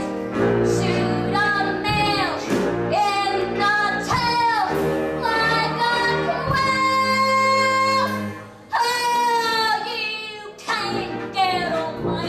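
A woman singing a show tune solo over instrumental accompaniment. She holds one long note in the middle, breaks briefly, then sings on.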